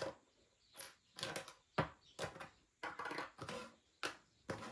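Packaging rustling and crinkling as it is handled and opened, a run of short, irregular crackles.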